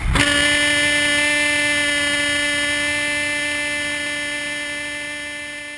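A single steady pitched tone with many overtones cuts in abruptly and slowly fades out.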